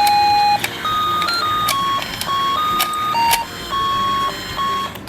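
Battery-operated toy fishing game playing its electronic tune: a simple melody of single beeping notes that step from pitch to pitch, with a few sharp clicks along the way.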